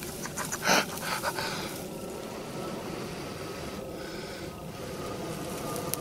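A man panting and blowing hard into a bundle of pine straw tinder holding a smouldering charcloth ember, with quick gasping breaths and puffs in the first second and a half. He is coaxing the ember to flame in slightly moist straw that is slow to catch.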